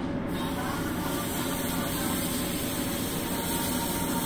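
Airbrush spraying paint, a steady hiss that starts about a third of a second in and keeps going, over a steady low rumble.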